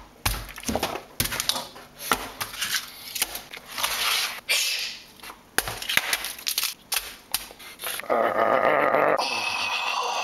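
Food being smashed and handled: a run of sharp slaps, knocks and crunches as the pieces are broken up and thrown into a plastic bowl. About eight seconds in, a steady rushing noise begins as sauce pours into the bowl.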